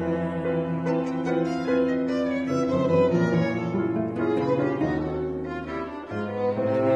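Piano trio of violin, cello and piano playing a tango movement live, the bowed strings to the fore with long held notes over the piano.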